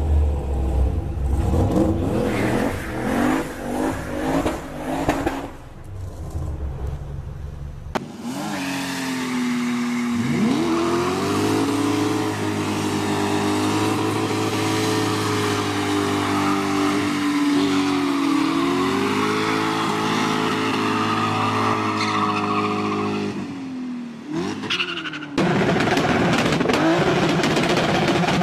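Car engines revving hard during burnouts, with tyre squeal. About eight seconds in, the sound cuts to another car whose engine climbs in pitch and then holds at high revs; near the end it cuts again to a different car.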